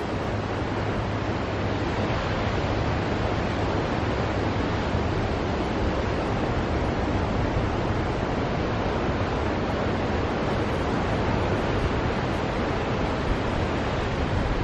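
Ocean surf breaking and washing among rocks below sea cliffs: a steady rushing wash with a low rumble underneath.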